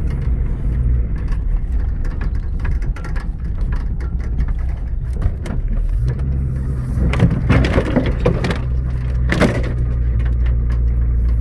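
1991 Toyota Land Cruiser engine running steadily, with irregular crackling and clicking over it and a few louder patches near the end.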